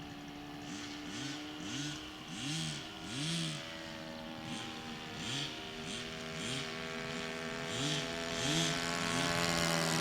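Seagull Spacewalker 46 radio-control model aeroplane's engine running in flight, its pitch rising and falling again and again, about once a second, over a steady drone.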